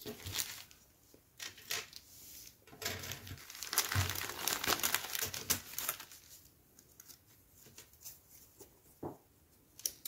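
Clear polythene kit bag crinkling and rustling as a plastic model-kit sprue is pulled out of it and the bag is handled, loudest and densest in the middle few seconds, then lighter, scattered crackles.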